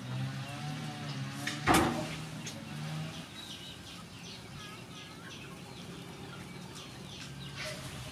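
Chickens clucking and calling in the background, with one sharp knock about two seconds in.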